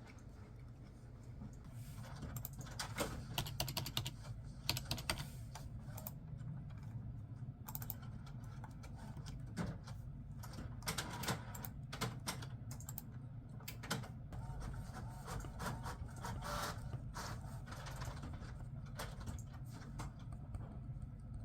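Typing on a computer keyboard: irregular runs of quick key clicks, starting about two seconds in, over a low steady hum.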